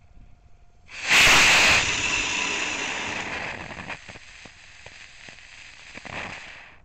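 Estes C11 model rocket engine firing on a snow sled. A loud, sudden hiss starts about a second in and lasts under a second, then a fainter hiss with a few light clicks fades away over the next few seconds.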